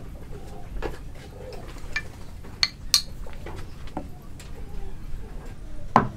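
Light clicks and clinks of hand tools being handled and set on a wooden board, then a single sharp knock near the end as a hammer strikes a wood-handled chisel to start a cut.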